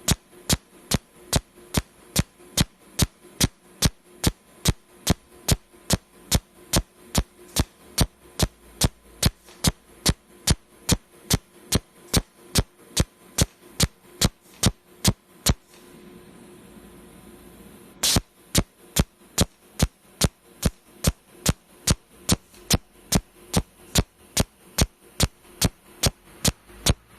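Pulse cold-welding machine firing its welding discharges: sharp snaps about two a second, evenly paced, over a steady electrical hum. About sixteen seconds in the snaps stop for two seconds, leaving a faint hiss, then resume with one louder snap.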